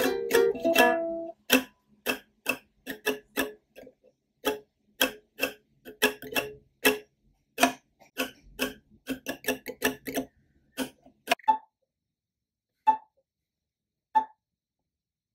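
Clock ticking: many sharp ticks overlapping out of step at about two to three a second, thinning about eleven seconds in to single ticks roughly every second and a half.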